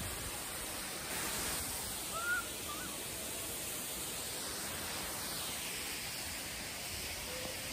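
Steady rush of falling water from a monsoon waterfall and rain, with a short bird call about two seconds in.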